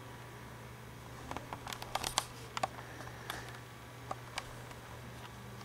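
Quiet room tone with a steady low hum, broken by a scattered run of small clicks and rustles in the middle.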